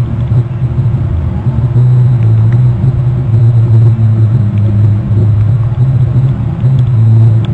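A loud, steady low rumble with a hum that shifts slightly in pitch every second or so.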